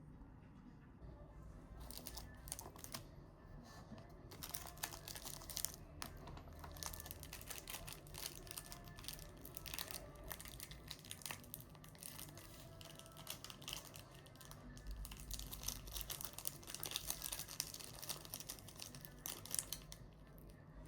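Hands handling crinkly paper or plastic packaging: irregular rustling and crinkling with many small clicks and taps, starting about two seconds in.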